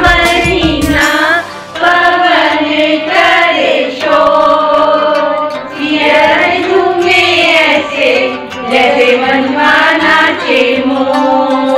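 Group of women singing a Hindi Teej (Sawan) song together, unaccompanied, holding and sliding between long sung notes.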